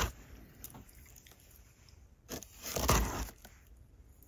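Cardboard box's packing tape being slit open with a box cutter: faint scraping, with a short louder scrape about three seconds in.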